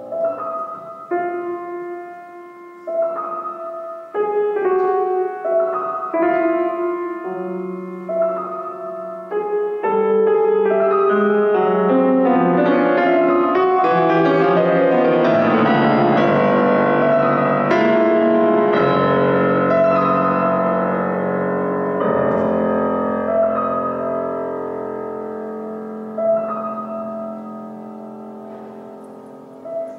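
Grand piano playing a contemporary classical piece: sparse single notes and short chords at first, building about ten seconds in to a dense, loud passage of many overlapping notes, then thinning to held low notes that slowly fade, with a few isolated notes near the end.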